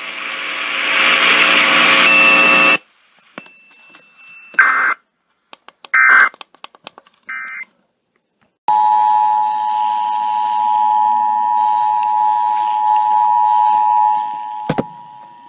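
Emergency Alert System broadcast tones over a radio feed. A stretch of loud radio static cuts off suddenly, then come three short electronic data bursts of the alert header, about a second and a half apart. A steady two-tone attention signal follows and holds for about six seconds.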